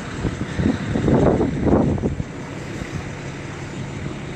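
Wind buffeting the microphone in gusts, loudest in the first two seconds, over a steady low hum.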